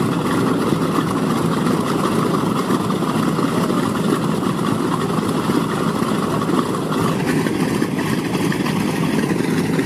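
B-25 Mitchell bomber's two Wright R-2600 Cyclone radial engines running steadily at idle, a constant deep rumble.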